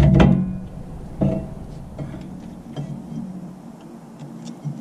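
Needle-nose pliers ticking against a rear brake caliper piston as they are worked into it to turn it. A few light metallic clicks, the clearest about a second in, with softer ones later.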